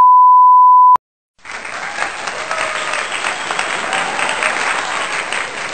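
A loud, steady beep tone for about a second, then after a short gap a crowd applauding and cheering.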